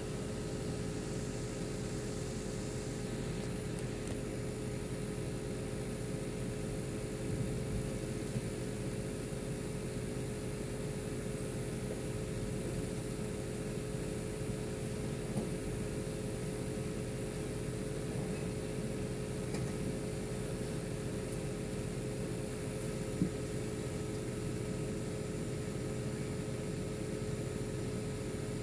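Komatsu hydraulic excavator's diesel engine running at a steady pitch as it lifts an overturned truck out of a ditch, with an occasional faint knock.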